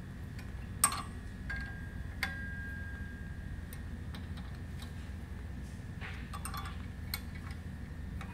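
An Allen wrench clinking against a metal pump bracket as its bolts are tightened: a few sharp metallic clicks, the loudest about a second in, and the second leaves a ringing tone. Fainter ticks and a short scrape follow near the end, over a steady low hum.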